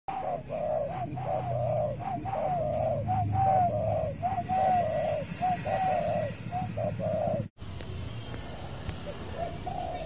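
Spotted dove cooing: a quick run of short, arching coo notes that breaks off suddenly about seven and a half seconds in, followed by a fainter coo near the end.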